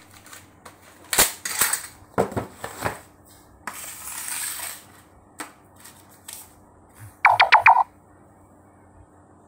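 Packing items being handled on a tiled floor: a series of sharp knocks as a tape dispenser and package are set down on the tiles, then about a second of scraping as a small white box is slid across the floor. Near the end there is a short, rapid, squeaky chatter of about six pulses.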